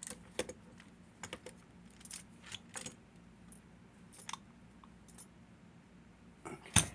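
Scattered small metallic clicks and taps as a lever padlock and picking tools are handled, with one louder knock near the end.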